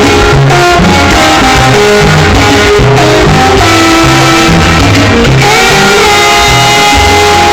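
Loud salsa music playing, with a repeating bass line under held melodic notes.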